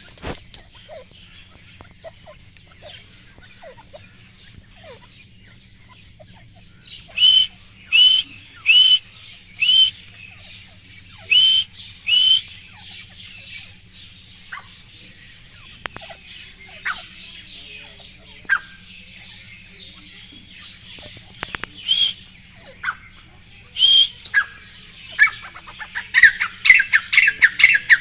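Grey francolin calling: short, sharp hooked notes, six spaced about a second apart, then a few scattered ones, breaking into a fast, loud run of repeated calls near the end.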